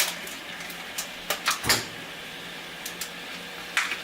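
A few short knocks and clicks of kitchen handling, one with a dull thud about halfway through, over a steady low hum.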